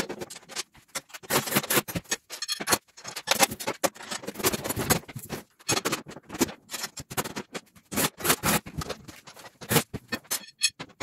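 Nuts and bolts being fitted and tightened on the wear bars of a steel snow plow blade: quick, irregular metal clicks and scrapes with short pauses between runs.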